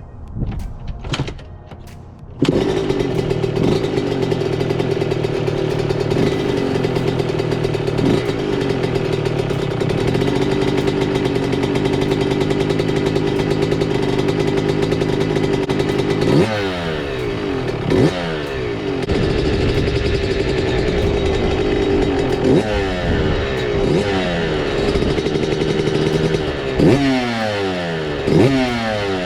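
Yamaha YZ125 two-stroke single-cylinder engine, freshly rebuilt, catching after a few knocks about two seconds in and running steadily. In the second half it is revved up and down again and again.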